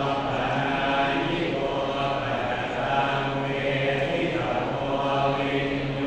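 Thai Buddhist monks chanting together in unison on a steady, near-monotone low pitch: the consecration chant that blesses amulets.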